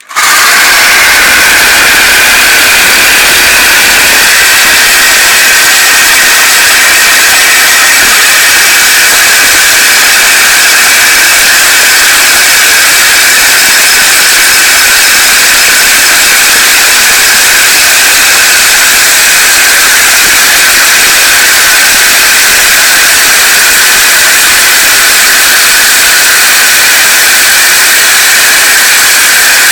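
Power saw running steadily and cutting through a triangular steel fence picket with a length of rebar inside; the loose rebar spins against the blade, so the cut goes slowly. The sound is loud and continuous, without letup.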